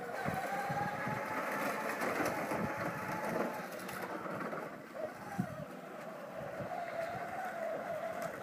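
Electric motor of a small 18-volt battery-powered tractor whining steadily as it drives, the pitch sagging briefly about five seconds in and then holding slightly lower.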